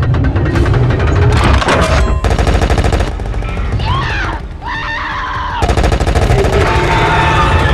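Film sound effects of a giant robot's arm cannons firing rapid automatic bursts, in two long runs, over a heavy low rumble. Between the runs, high gliding tones rise and fall.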